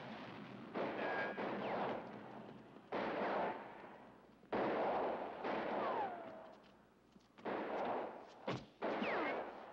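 Movie gunfire: a string of loud, sudden shots one to two seconds apart, each fading off quickly. Several bullet-ricochet whines fall in pitch among them.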